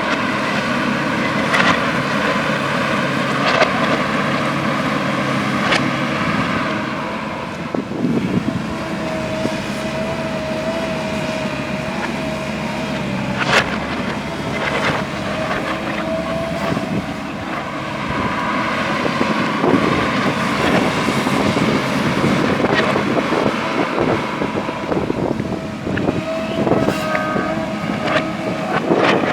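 JCB backhoe loader's diesel engine running steadily under work, with a wavering whine at times and scattered sharp knocks.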